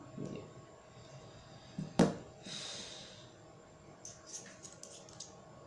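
A smartphone set down on a wooden tabletop with one sharp knock about two seconds in, followed by a short hiss. Then a run of small light plastic clicks as a clip-on phone lens is handled.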